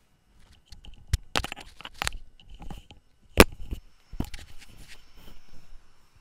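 Handling noise: irregular sharp clicks and crackly scraping rustles of hard objects being picked up and moved, the loudest click about three and a half seconds in.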